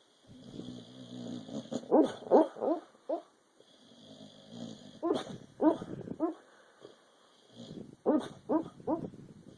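A dog yipping and woofing in its sleep while dreaming, in three bouts of a few short calls each, after a low sound near the start.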